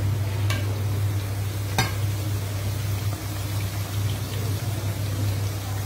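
Chicken pieces deep-frying in hot oil in a kadai, a steady sizzle over a low steady hum. A metal spoon clinks against the pan twice, about half a second and just under two seconds in.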